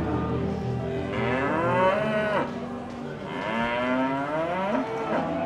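Charolais cattle mooing: two long moos, each bending in pitch, the first about a second in and the second in the latter half.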